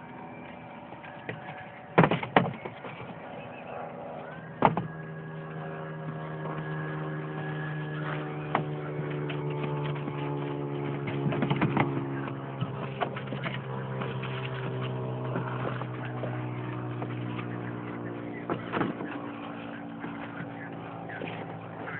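An engine running steadily nearby, its hum sliding slowly lower in pitch through the middle stretch. Over it come a few sharp knocks, the loudest about two seconds in.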